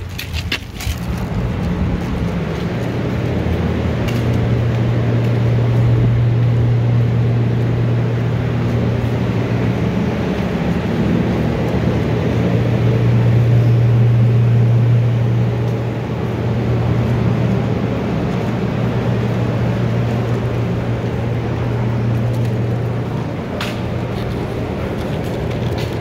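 A loud, steady low mechanical hum that sets in about a second in and holds one deep tone without a break.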